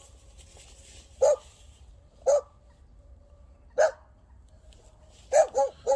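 A dog barking: three single barks spaced a second or more apart, then three quick barks in a row near the end.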